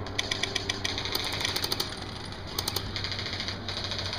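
Airsoft electric guns (AEGs) firing several short bursts of fast clicking shots, about a dozen a second, over a steady low hum.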